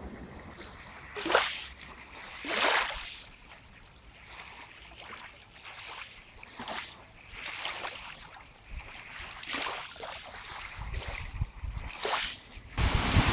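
Lake water lapping and splashing at the shore of Lake Baikal in a series of separate short swishes, the two loudest about one and two and a half seconds in, over a light wind rumble.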